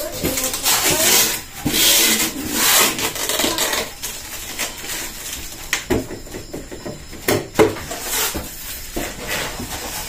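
Clear plastic door bins of a new Samsung refrigerator being handled and fitted onto the door: plastic rattling and rubbing, with a few sharp clicks and knocks about six and seven and a half seconds in.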